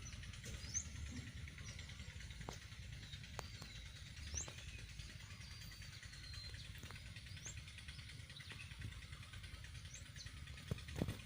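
Birds chirping: scattered short rising chirps and one longer, slowly falling whistle, over a low rumble, with a few sharp clicks near the end.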